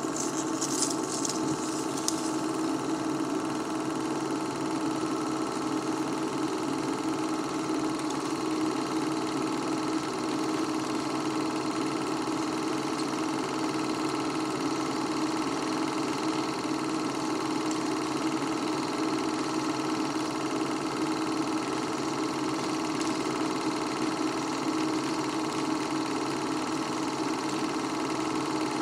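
Film projector running, a steady mechanical whirr and clatter with a constant hum. A brief higher rattle sounds in the first couple of seconds.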